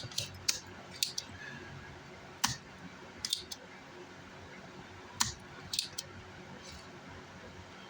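Scattered light clicks and taps of small tools and parts being handled on a workbench, about a dozen at irregular intervals, fewer and fainter in the last couple of seconds.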